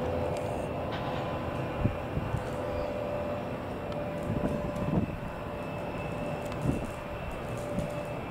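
Jet engine noise from a Boeing 737-800's CFM56-7B engines as the airliner climbs away after takeoff: a steady distant rumble with a faint steady whine in it. A few brief low thumps come through about two, five and seven seconds in.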